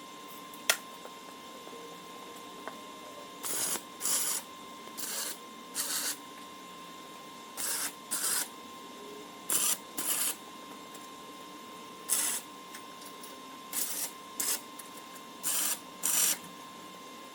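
Welder laying tack welds on the steel crossbars of a flatbed: about a dozen short crackling bursts, each under half a second, mostly in pairs, as each bar is tacked at both ends.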